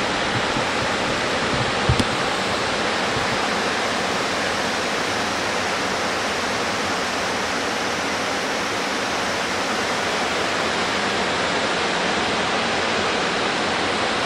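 Water pouring steadily over a dam spillway, an even rushing sound, with one brief knock about two seconds in.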